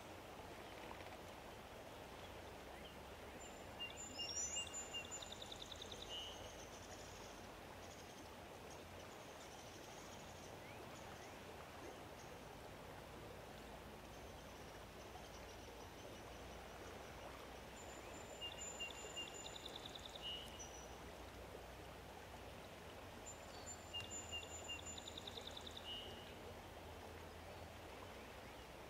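A songbird sings the same short song three times, each a few clipped high notes and a quick trill. Under it runs a faint, steady outdoor hiss.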